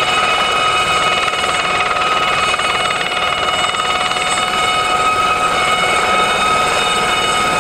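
Aérospatiale Gazelle helicopter hovering low: a steady high turbine whine made of several held tones over a fast, even rotor chop.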